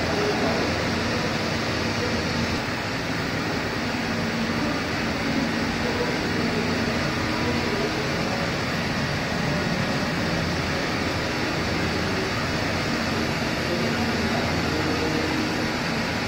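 Steady whir and air rush of a roll-to-roll film comma coating line running, with its dryer zone fans blowing; an even noise with no change in level.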